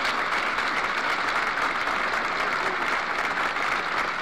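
Large rally crowd applauding steadily.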